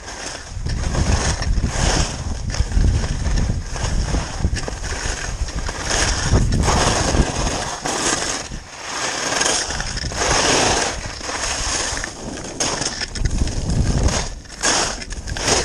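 Skis scraping and hissing over firm snow through a run of turns, the hiss swelling and fading again and again, over a low rumble of wind buffeting the microphone.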